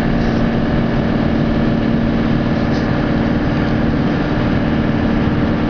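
Engine and road noise of a tour van heard from inside its cabin while driving: a steady drone with a constant low hum running through it.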